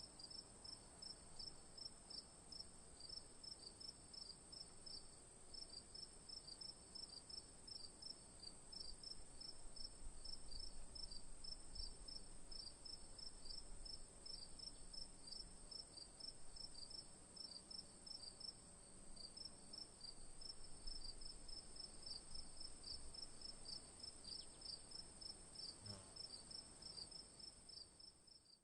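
Crickets chirping: a steady, high trill runs under a faint, rapid series of short chirps, about three a second.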